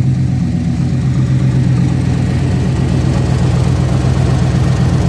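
OBS GMC Sierra pickup's engine idling steadily with a fast, even exhaust pulse, the sound of an exhaust manifold leak on the side not yet repaired: one side's gasket has been replaced, and the owner hears the other side leaking now.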